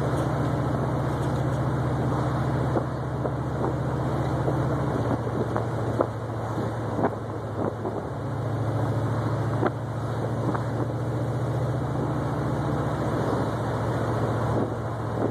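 1972 Oldsmobile 442's V8 engine and exhaust running steadily while the car is driven. The low note drops about five seconds in and gets louder a few seconds later, with a few sharp clicks over the middle.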